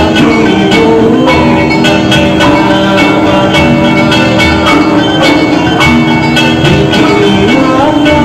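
Background music with a steady beat and bright tuned percussion.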